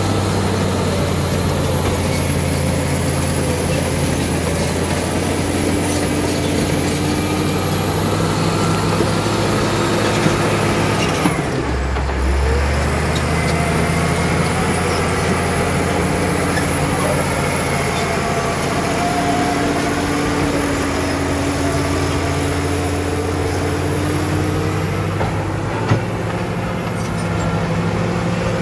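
Caterpillar D7G bulldozer's diesel engine running steadily under load as the machine pushes earth and rock, with a high whine above the engine note. The sound dips and changes briefly about eleven seconds in, then settles back.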